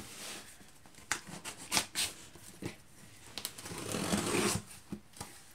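Plastic bags and packaging rustling as meal-kit ingredients are handled and pulled out of a box, with a few light taps and clicks and a longer rustle about four seconds in.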